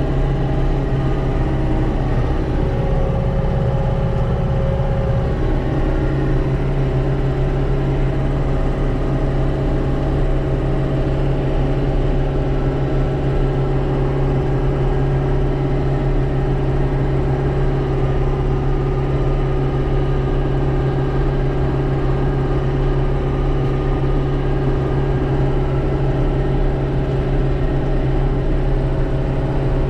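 John Deere 6310 tractor's four-cylinder diesel engine running steadily under load while pulling a seed drill, heard from inside the cab.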